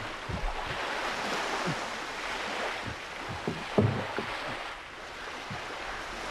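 Lagoon water sloshing around a person in the shallows, with surges of wash and several short splashes. The loudest splash comes a little before four seconds in.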